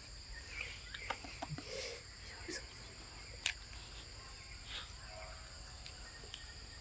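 Steady high-pitched insect chorus, with a few faint clicks and taps scattered through it.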